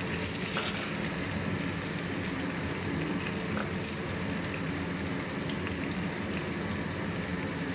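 Freshly added cabbage sizzling in hot oil with garlic and carrots in a nonstick wok: a steady crackling hiss with a few faint pops. A steady low hum runs underneath.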